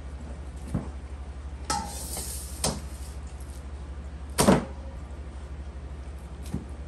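Knife work on a wooden cutting board, raw pork being cut and handled, with a few sharp knocks and taps. The loudest is a thump about four and a half seconds in as a trimmed piece of meat lands in a stainless steel bowl. A steady low hum runs underneath.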